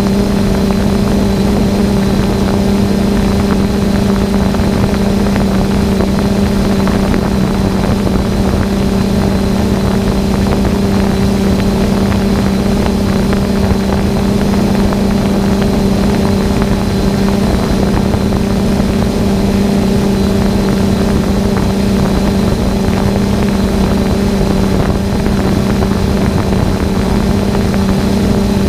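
Quadcopter drone's propellers and motors humming steadily while it hovers, a constant low drone with a faint high whine above it.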